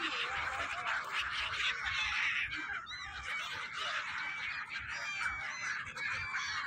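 A large flock of gulls calling, a dense chatter of many short overlapping cries, with a few clearer, higher calls standing out near the end.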